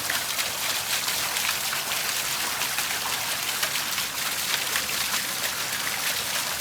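Water from a sump pump's discharge pipe pouring steadily into a bucket, a continuous splashing gush of more than 5 gallons.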